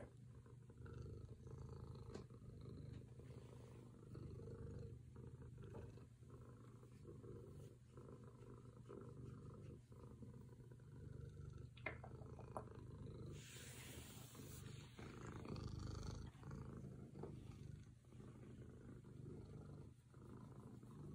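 Domestic cat purring steadily and faintly while being scratched on the head, with a brief rustling noise about two-thirds of the way through.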